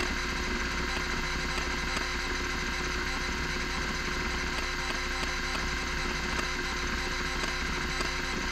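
Miniscribe 3425 20 MB MFM hard drive running a random-seek test: the spindle motor hums and whines steadily and loudly, under rapid, irregular clicking from the stepper-motor head seeks.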